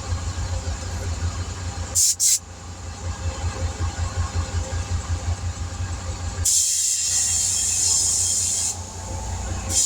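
Compressed air hissing from an air chuck into a remounted car tire: two short bursts about two seconds in, then a longer blast from about six and a half seconds and again near the end. The tire bead has not yet sealed on the rim. An engine idles with a steady low pulsing underneath.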